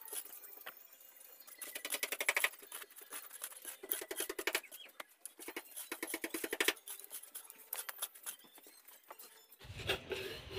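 A shovel and a hoe scraping and turning a pile of gravel and cement mix, with short bursts of gritty rasping and scattered clicks of stones.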